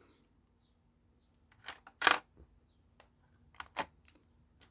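Lego plastic parts of a brick-built rifle clicking and knocking as they are pushed and handled: a few sharp clicks, the loudest about two seconds in and a quick pair near the end.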